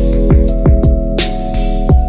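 Background music: sustained synth chords over a steady electronic beat of deep drum hits, about three a second.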